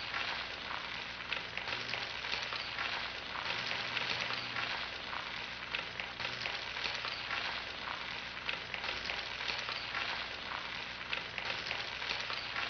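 An egg frying in a hot pan: a steady crackling sizzle full of tiny pops, over a faint low hum.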